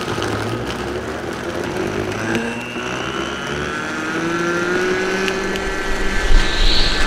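Countertop blender running with ice in it, a steady grinding motor noise whose whine rises slowly in pitch.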